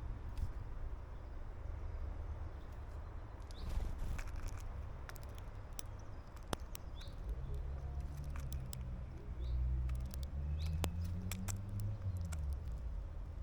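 Small birds at a garden seed feeder: scattered light taps and clicks and a few short chirps over a steady low rumble. A low engine hum, as of a passing vehicle, comes in about halfway through and fades near the end.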